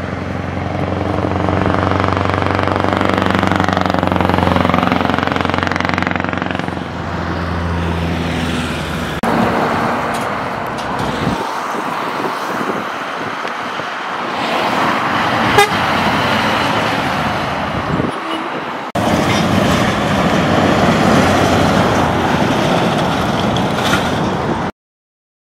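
Scania R-series V8 diesel trucks on loud exhaust pipes driving past, a deep steady engine drone whose pitch swells and falls as a truck passes. It comes in several passes that cut in abruptly, and stops suddenly near the end.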